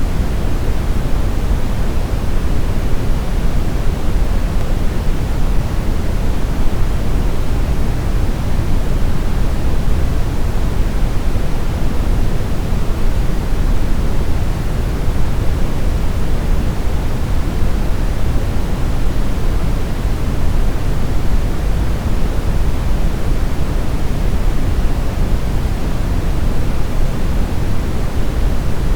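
Steady brown noise: an even, unbroken hiss weighted heavily toward the low end, a deep rumble with little top.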